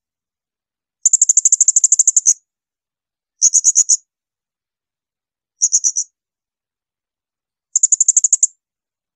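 Blue-crowned hanging parrot (serindit) giving shrill, high rapid-fire trills: four bursts of quickly repeated notes, the first about a second and a half long and the rest shorter, separated by short silences.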